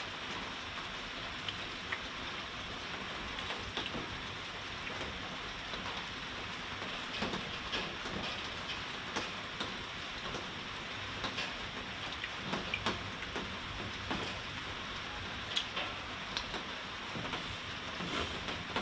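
Heavy rain falling steadily, with scattered short sharp taps and drips standing out from the patter.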